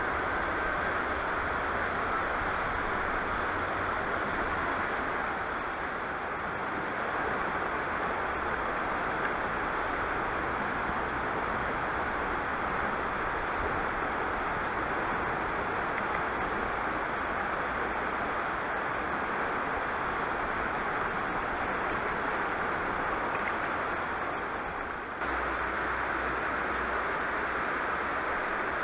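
Steady rush of river water running over shallow rapids. The sound changes abruptly about 25 seconds in, with more low rumble afterwards.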